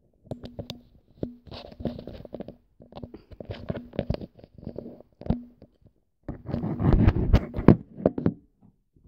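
Rustling, rubbing and knocking handling noise on the microphone of a hand-held phone, in irregular bursts. The noise is loudest from about six to eight seconds in, as the phone is swung about.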